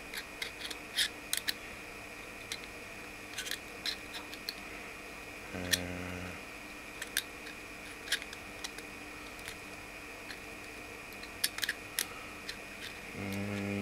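Scattered small clicks and taps of hard plastic parts and small motors being handled and pressed into an Elenco Escape Robot kit's plastic chassis, with a short hum from the builder about six seconds in.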